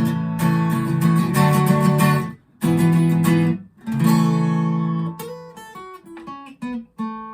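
Acoustic guitar strummed in chords that stop short twice, then a chord left ringing and fading, followed by single notes picked one at a time near the end.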